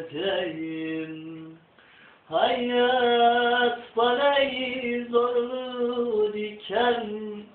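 A man singing a Turkish song unaccompanied, holding long, slightly wavering notes, with a breath pause about two seconds in.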